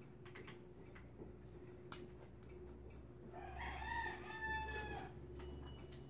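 A rooster crowing once, a pitched call of about two seconds starting a little past the middle, over a steady low hum, with a single sharp click shortly before it.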